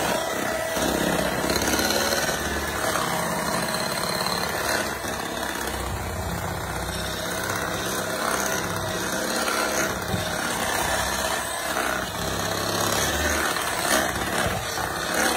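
Electric hand mixer running steadily, its beaters whipping cream cheese icing in a glass bowl as an extra cup of powdered sugar and a little milk are beaten in.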